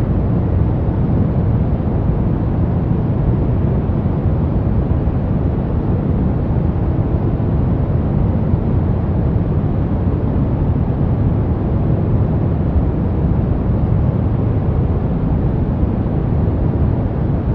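Soft brown noise: a steady, even rumbling hiss, strongest in the bass and falling away toward the treble, unchanging throughout.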